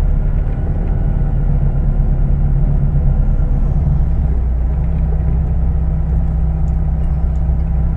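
Scania truck's diesel engine running, heard from inside the cab as a steady low rumble.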